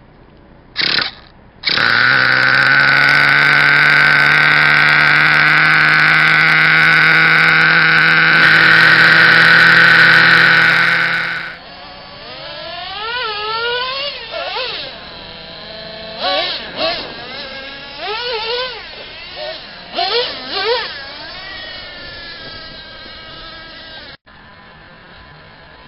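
Twin 3.3 nitro engines of a Traxxas T-Maxx RC truck: a short burst about a second in, then the engines catch and run loud and steady close by for about ten seconds. After that they are farther off and rev up and down over and over as the truck is driven.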